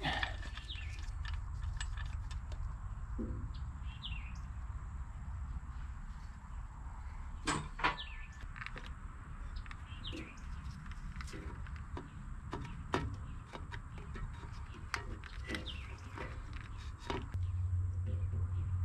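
Scattered small metal clicks and knocks from hands working the lid and element out of a Ford 8N tractor's canister oil filter housing, the loudest a pair of knocks about halfway through. A few short bird chirps sound over a steady low hum.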